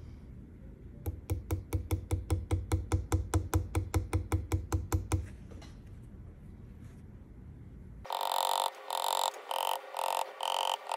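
A low hum with a run of even ticks, about five a second, for about four seconds. Then, about eight seconds in, a steel burnishing tool rubs the sterling silver bezel down around a moss agate cabochon in loud, short, repeated strokes.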